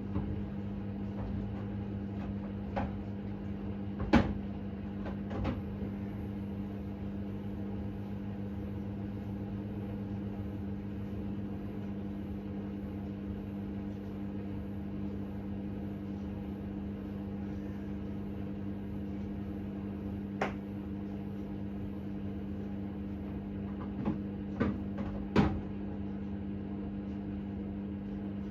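Hoover H-Wash 600 12 kg washing machine running with a steady hum, with a few sharp knocks now and then and a small cluster of them near the end.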